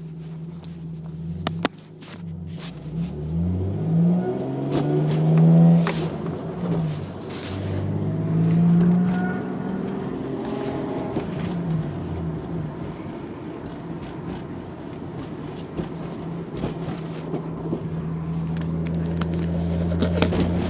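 Twin-turbo Toyota Supra engine revving up and back down twice, with a whine coming in as it passes about 2500 rpm, then settling to a steady idle. The cause of the whine is unknown to the owner. A couple of sharp clicks come near the start.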